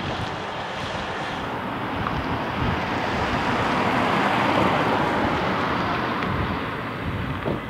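Rushing noise of a passing vehicle mixed with wind on the microphone, swelling to its loudest about halfway through and then easing off.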